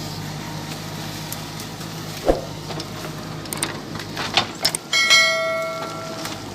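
JCB 3DX backhoe loader's diesel engine running steadily, with knocks and a thump from the machine's work. About five seconds in comes a loud metallic clang that rings on like a bell for a second or so before fading.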